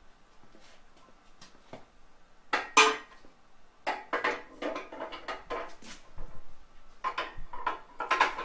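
Metal tools and parts clanking and clinking as they are handled and set down, in irregular clusters, with one loud clank about three seconds in.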